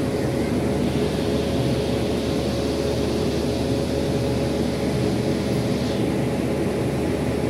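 Steady hum of an Indian Railways electric locomotive: a constant low drone with a steady whine-like tone held above it.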